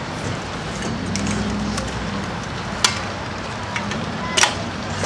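Sharp clinks and knocks of metal tools on engine parts as pistons go into the blocks, the two loudest about three and four and a half seconds in, the second one ringing, over steady outdoor background noise.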